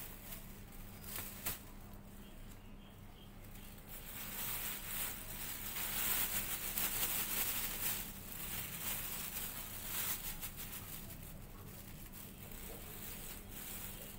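Thin plastic bag rustling and crinkling as it is handled and opened, loudest in the middle, with a few light clicks near the start.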